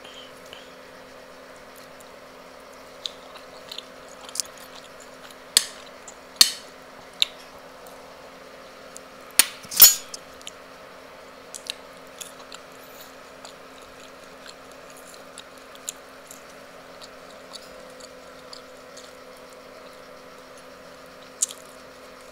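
Eating sounds of roast chicken being eaten with the fingers: scattered wet smacks and sharp clicks of chewing and lips, loudest about six and ten seconds in, over a steady low hum.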